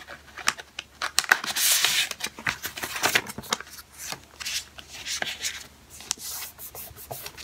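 Loose printed sheets of paper rustling and sliding as they are handled and leafed through, with a few light clicks.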